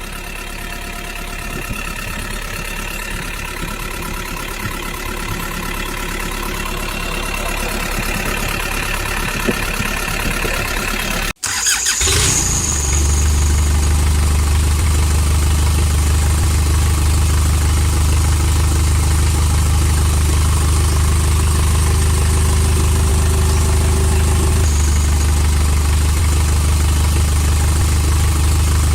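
A small motor running steadily with a pitched whine; after an abrupt cut a little over a third of the way in, a steadier, deeper hum takes over.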